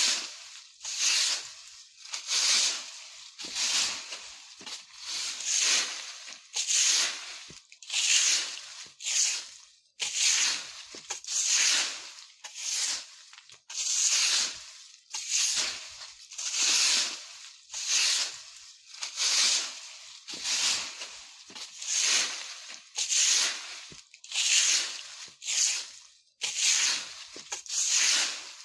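A broom sweeping dry fallen leaves on the ground in steady repeated strokes, each a rustling swish, a little faster than one a second.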